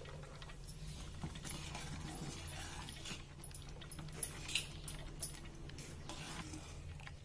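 Steel ladle stirring thick milky kheer in a stainless steel pan, with faint scattered clinks of metal on metal, over a steady low hum.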